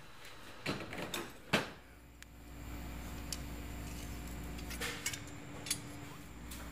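A few sharp clicks and clunks of metal shop gear being handled and set in place, over a low steady hum that sets in a couple of seconds in.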